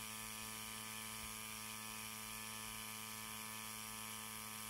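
Ryobi 18 V cordless tire inflator's compressor running steadily while filling a truck tire, heard as a faint, even hum.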